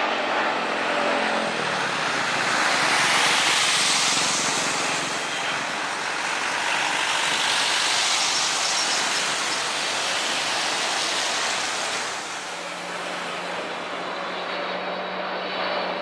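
Jet noise of a Boeing 777-300ER's two GE90 turbofans as the airliner lands and rolls out, a steady roar with a sweeping hiss that swells twice. About twelve seconds in it drops to a quieter, steady engine hum.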